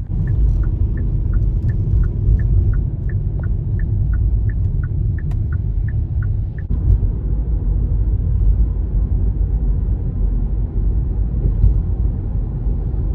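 Car turn-signal indicator ticking in an alternating high-low tick-tock, about three ticks a second, over the steady low rumble of the car driving; the ticking stops about six and a half seconds in.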